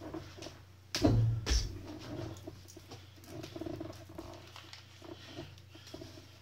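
Thin plastic food bags being handled on a kitchen worktop: irregular crinkling and rustling, with a sharp knock about a second in and a smaller one just after.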